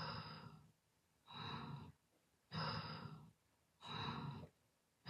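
A person snoring: four rough breaths, in and out by turns, each a little under a second long with short pauses between.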